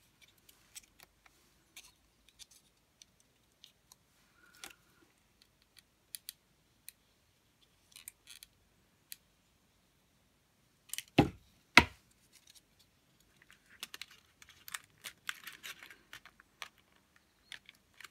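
Light crackling and small clicks of folded paper cones being handled and pressed down by hand, with two sharp knocks about eleven seconds in, followed by a spell of steadier paper rustling.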